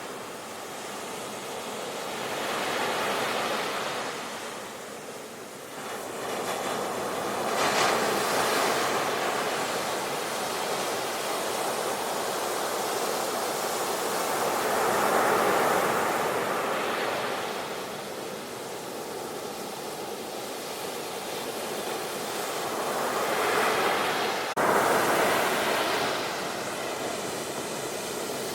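Ocean surf: waves breaking and washing up the shore, the rush swelling and fading every few seconds. A sharp click sounds near the end.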